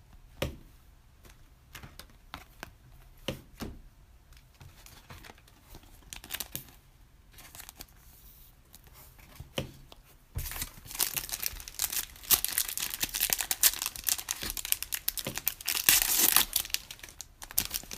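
Scattered light clicks of cards being handled, then from about ten seconds in a Panini Prizm basketball card pack being torn open, its wrapper crinkling densely and loudly.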